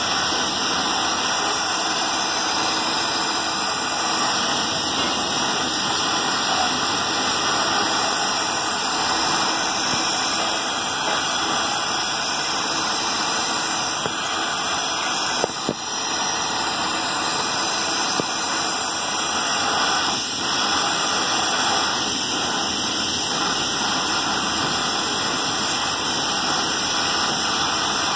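Gas welding torch flame hissing steadily as it heats a brass lota for a joint. There is a brief knock and dip in the sound about halfway through.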